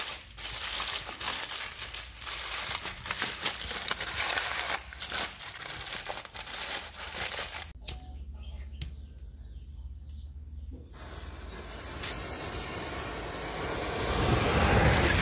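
Aluminium foil crinkling and rustling as hands fold and press it around a package, for about the first eight seconds. Near the end, a mass of bundled match heads catches fire with a rising hiss.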